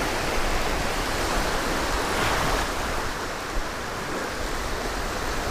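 Small ocean surf breaking and washing up a sandy beach as a steady hiss, with one wash swelling louder about two seconds in.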